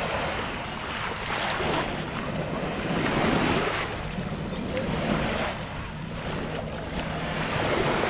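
Small waves washing up on a sandy shore, the wash swelling and falling back about every two seconds, over a steady low hum.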